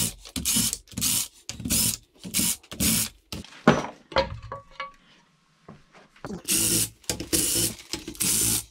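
Cordless power driver running out the valve-cover bolts on a Kawasaki four-stroke jet ski engine, in a string of short bursts of under a second each, with a pause in the middle.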